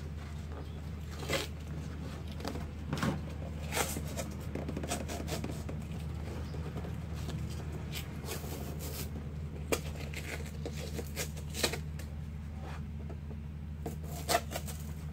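Cardboard and tape being handled while a box corner is taped: scattered scrapes, rustles and taps, a few sharper than the rest, over a steady low hum.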